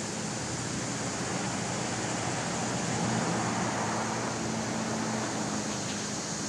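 Steady background noise with a low, even hum, swelling slightly about three seconds in.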